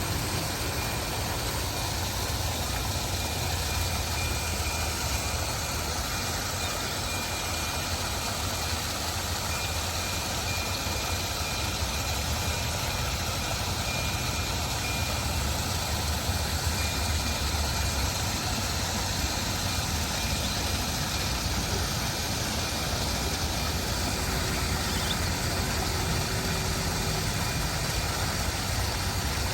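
Water rushing steadily, as from a small waterfall, a continuous even rush with a deep low rumble underneath.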